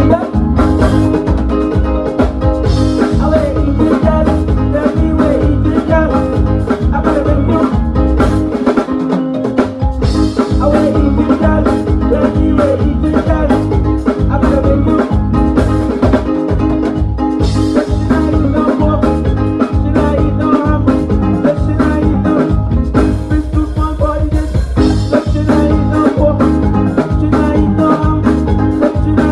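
Loud music with a drum kit playing a steady beat.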